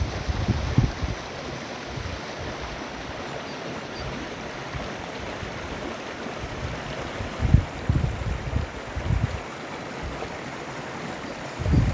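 Steady rush of running water, with gusts of wind buffeting the microphone near the start, about two-thirds of the way through, and again at the end.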